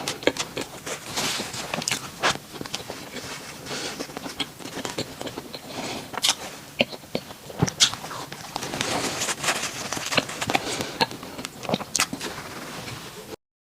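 Bread being eaten up close: irregular crackles and clicks of biting and chewing, with loud breathing. The sound stops abruptly near the end.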